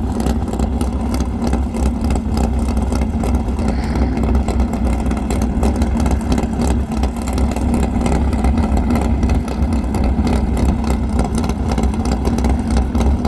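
Land speed race car's engine running loud and steady, without clear revving.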